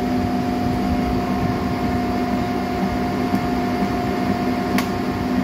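Steady machine hum with two constant tones over a noisy rumble, and one sharp click about five seconds in.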